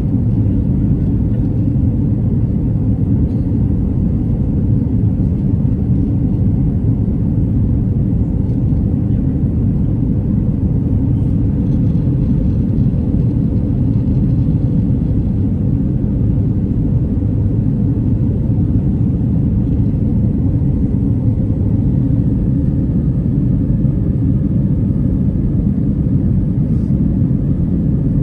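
Airbus A319 cabin noise: a steady, low rumble of the jet engines and airflow heard from inside the passenger cabin, unchanging throughout.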